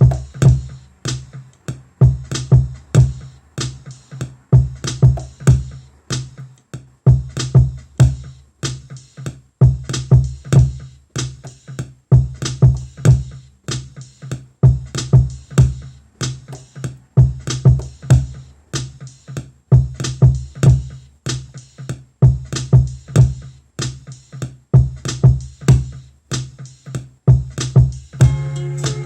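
Hip-hop drum pattern with a deep sub bass, sequenced on an Akai MPC Live, playing in a steady looping groove.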